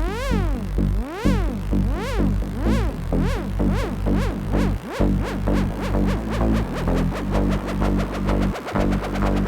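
Electronic background music: synthesizer sweeps that rise and fall, repeating faster and faster, over a steady bass and beat.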